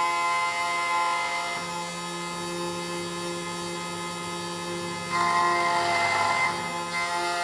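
SEC-E9 key cutting machine running with a steady whine as its cutter mills a brass HON66 Honda key blade. About five seconds in the cutting gets louder and rougher for a second and a half, then eases back.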